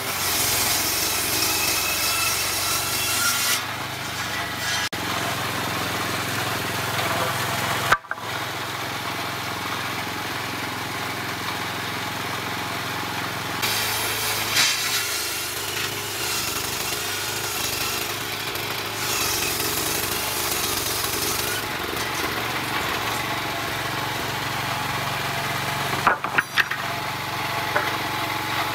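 Circular saw blade of a combination horizontal bandsaw sawmill ripping wooden planks, with the machine running steadily throughout. It cuts in three louder, higher-pitched bouts as boards are pushed through. There is one sharp knock about eight seconds in and a brief clatter near the end.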